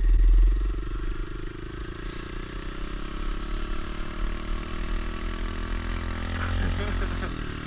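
Kawasaki KLX110 pit bike's small single-cylinder four-stroke engine running under way, its pitch climbing slowly as the bike speeds up. Low wind rumble on the helmet camera, loudest at the start.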